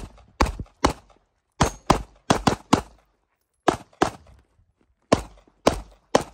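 Staccato P pistol fired about a dozen times in quick pairs and short strings, with gaps of about a second between groups as the shooter moves between targets. Each shot is a sharp crack with a brief echo.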